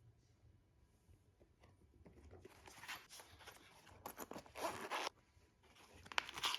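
A zipper being pulled open by hand in several rasping strokes, starting about two seconds in after a quiet stretch, with one more pull near the end.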